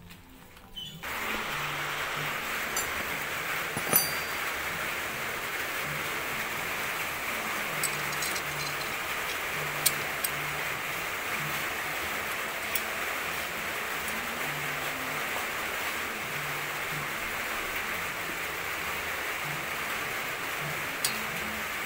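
Steady, even hiss of background noise, with a few light clicks of parts being handled about four seconds in, around ten seconds in and near the end.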